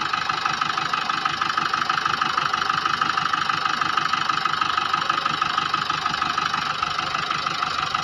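Car engine idling steadily with an even, fast pulse, heard close up in the open engine bay.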